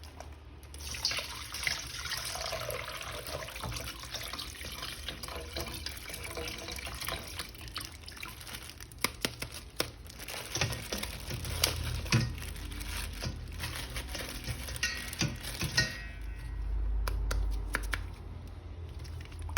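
Water running from a tap and splashing, with scattered small knocks, as a plastic action figure is washed. The running water stops about 16 seconds in, leaving a low rumble.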